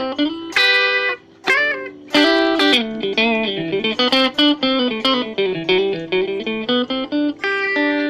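Mavis MST-600 electric guitar played through a clean tone on a combined pickup setting: a quick single-note melodic run with a short pause about a second in, the line dipping lower in the middle before climbing back.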